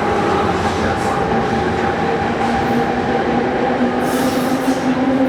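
New Jersey Transit train rolling along the platform track as it arrives, a loud steady rumble with a steady mechanical whine on top. A short hiss comes about four seconds in.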